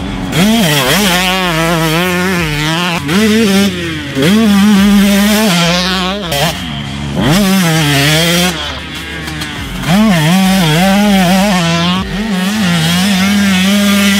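2018 Husqvarna TC125's 125cc two-stroke engine being ridden hard. Its high-pitched note climbs and drops over and over as the throttle is opened and shut through the corners, with a few sharp climbs.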